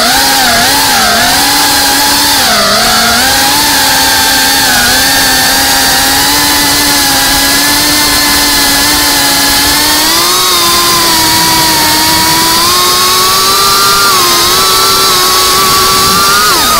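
GEPRC Cinelog 35 FPV drone's motors and propellers buzzing in flight. The pitch dips and rises with the throttle in the first few seconds, climbs gradually in the second half, and drops sharply at the very end.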